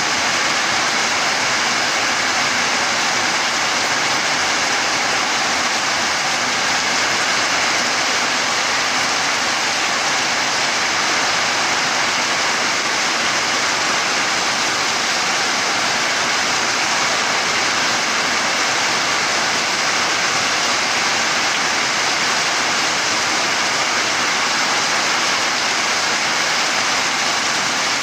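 Heavy downpour: dense rain falling steadily, with water streaming off the roof edge in a continuous rush.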